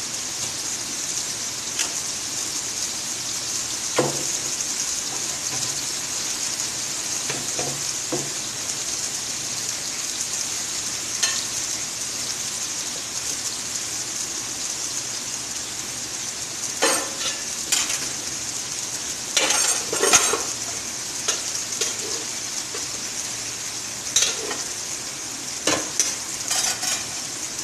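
Chicken, carrot and chillies frying in oil and masala in a metal kadai: a steady sizzle. A metal slotted spatula scrapes and clinks against the pan now and then, in a cluster of strokes a little past the middle and again near the end.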